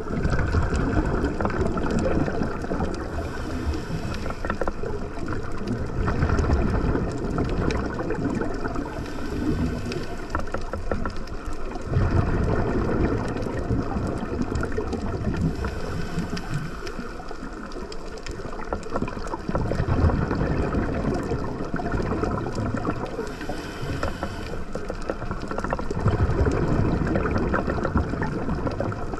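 Underwater recording of a scuba diver's breathing: a soft hiss from the regulator on each inhale and a louder burst of exhaled bubbles, repeating about every five to six seconds over a steady underwater rumble.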